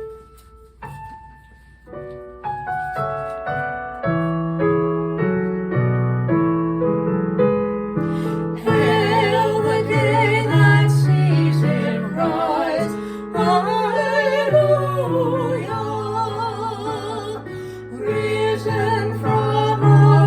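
Piano playing a short introduction, then two women singing a hymn-like anthem with vibrato over the piano accompaniment from about eight seconds in.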